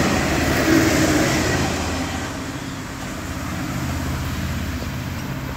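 V/Line Sprinter diesel railcar passing close by, its engine running and its wheels rushing over the track. The noise is loudest for the first two seconds, then drops away and holds lower as the train moves off.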